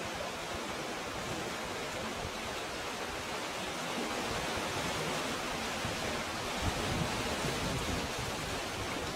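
Steady rushing hiss of sea water washing through a rocky, pebbled cove, with a few low wind buffets on the microphone a little past the middle.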